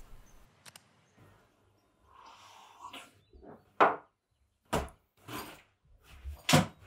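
A person packing up and grabbing a backpack: rustling of fabric and a few sharp knocks and thuds, the loudest near the end.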